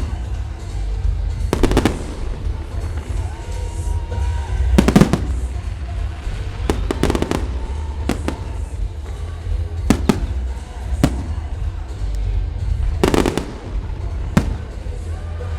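Fireworks display: aerial shells bursting in single loud bangs at irregular intervals, about nine in fifteen seconds, some in quick pairs.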